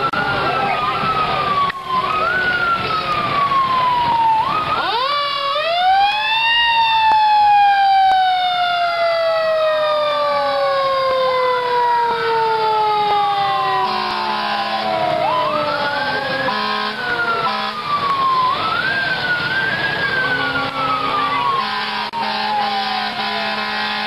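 Fire engine sirens winding up quickly and falling slowly in pitch, over and over, with more than one siren overlapping. The biggest wind-up, about five seconds in, is the loudest and takes several seconds to fall away.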